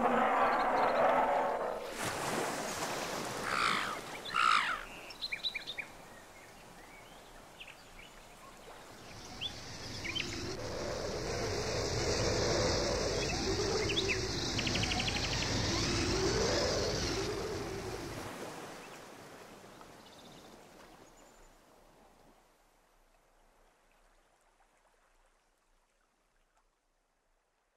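Natural ambient soundscape: short bird calls, then a wash of noise like surf that swells and ebbs, fading away to silence near the end.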